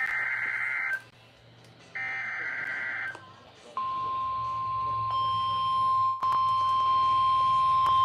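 NOAA Weather Radio Emergency Alert System signal for a severe thunderstorm warning. Two one-second bursts of digital header data tones, about a second apart, are followed about four seconds in by the steady single-pitch warning alert tone, which holds.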